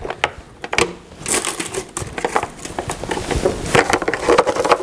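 Packing paper crinkling and rustling as a new contact grill is unwrapped and opened, with a few small knocks and clicks from handling.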